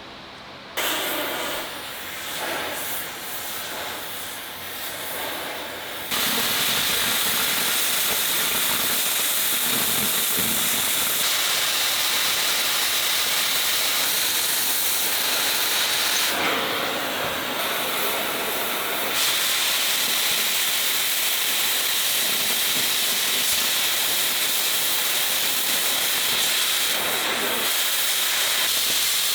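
Welder at work on a steel tank turret, a loud, steady hissing noise that starts about a second in and settles into long runs, fusing steel plug discs into holes in the armour plate.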